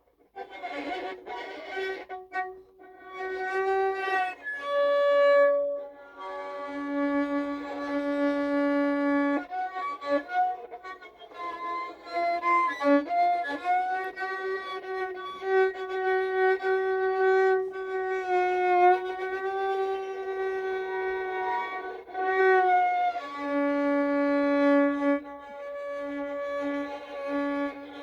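Solo violin played slowly in long held notes, each lasting a few seconds, with slight wavering in pitch and short slides between notes.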